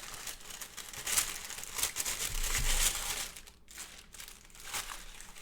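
Paper wrapping crinkling and rustling in irregular handfuls as a keyboard is unwrapped from its packaging, with louder swells about a second in and again around two to three seconds in.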